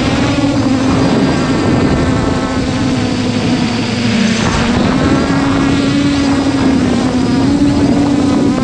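Small quadcopter drone's motors and propellers buzzing steadily while flying, the pitch shifting slightly as it manoeuvres.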